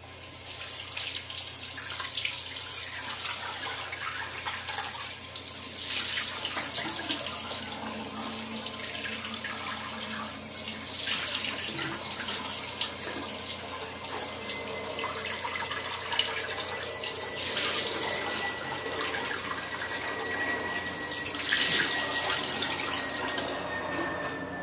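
Bathroom tap running into a sink, the rush of water swelling louder every few seconds as it splashes, with a faint high tone sinking slowly in the second half. It stops near the end.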